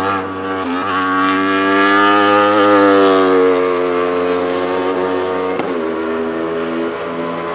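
Wolf GB08 Thunder race car's Aprilia RSV4 1,000 cc V4 superbike engine accelerating hard past on track. The note climbs in pitch and is loudest a few seconds in, with quick upshifts near the start and again late on. After the second shift it drops to a lower note as the car pulls away.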